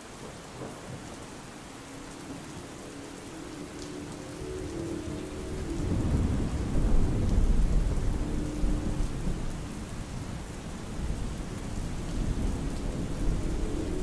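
Steady rain with a long roll of thunder that builds about five seconds in and is loudest a couple of seconds later, then rumbles on. Faint, distant synthesized train-horn chords sound now and then beneath the storm.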